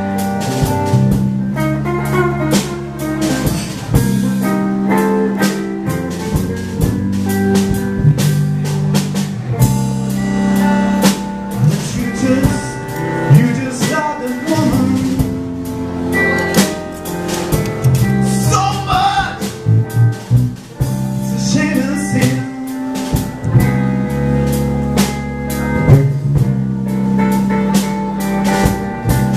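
A blues trio playing live: electric guitar, electric bass and a drum kit with cymbals, in a slow twelve-bar blues.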